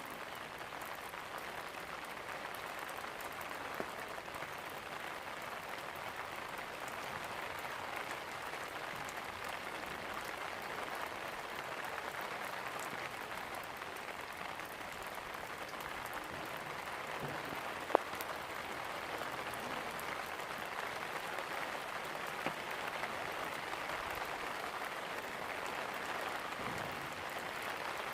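Steady rain, an even hiss of falling drops, with a single sharp click about eighteen seconds in.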